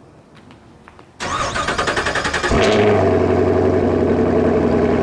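A vehicle engine starts: about a second in, it cranks with a rapid pulsing for about a second and a half, then catches about halfway through and settles into a steady idle.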